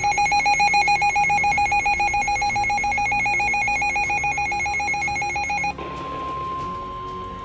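NOAA weather radio sounding an alert: a loud, fast-trilling alarm that stops abruptly about six seconds in, replaced by a steady one-pitch warning tone, the tone that precedes a National Weather Service warning being read out.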